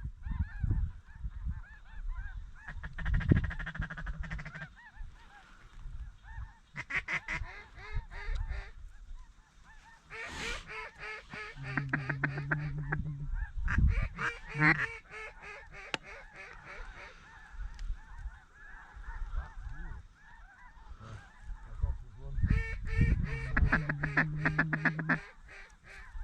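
Ducks and geese calling: quacks and honks in rapid runs, coming in several bouts, with wind rumbling on the microphone.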